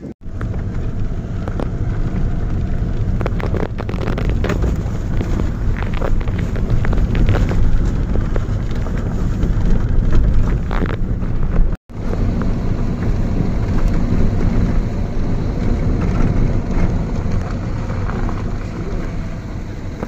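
Car driving slowly on a rough unpaved dirt road, heard from inside the cabin: a steady low engine and tyre rumble with frequent knocks and rattles from the bumpy surface. The sound drops out for an instant about twelve seconds in.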